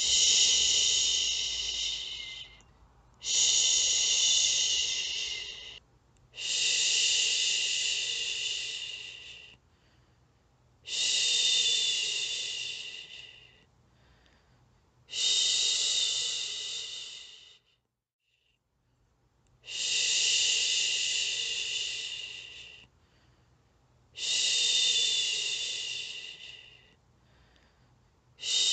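A woman's long 'shhhh' shushing, the soothing sound used to lull a baby to sleep, repeated about every four seconds. Each shush starts abruptly, lasts two to three seconds and trails off, with a short pause between.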